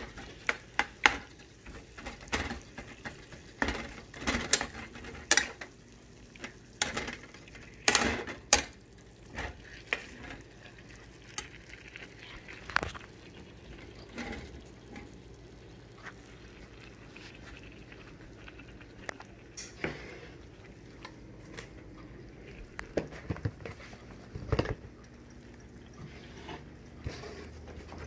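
Metal spoon clinking and scraping against a frying pan as meat is stirred, over a faint frying sizzle. The knocks come thick and irregular for the first ten seconds or so, thin out in the middle, and pick up again near the end.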